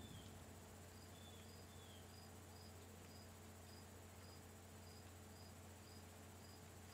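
Faint cricket chirping: short, high chirps repeating evenly about twice a second, with a few lower falling chirps in the first two seconds, over a low steady hum.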